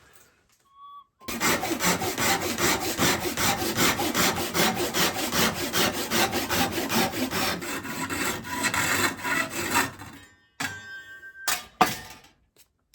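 Hand saw cutting through a walnut board in quick, even back-and-forth strokes, about four to five a second, stopping about ten seconds in. A few short knocks follow near the end.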